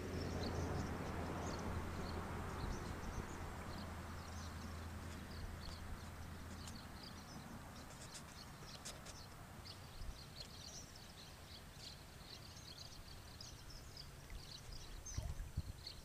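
A large flock of birds calling overhead: many short, overlapping high chirps throughout. A low steady hum and a soft rushing noise fade away over the first several seconds, and a few low knocks come near the end.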